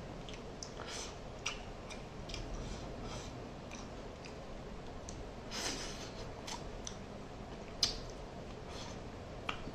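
Close-up mouth sounds of eating mackerel curry by hand: a scatter of soft, wet clicks and smacks as the flesh is chewed and sucked off the fish bones. There is a short hiss a little past halfway and one sharper click near the end.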